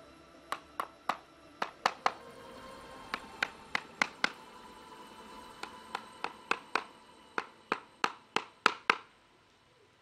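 The back of a small hatchet used as a hammer, driving nails into a flat wooden board: about twenty sharp knocks with a short metallic ring, in uneven runs, stopping near the end.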